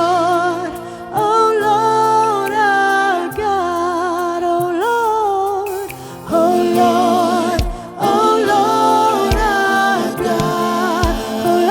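Gospel singing with held, wavering notes, backed by music with a few low beats.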